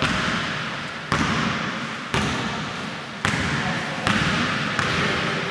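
Basketball dribbled on a hardwood gym floor, about one bounce a second, each bounce followed by a long echo in the hall. Players' voices are faint underneath.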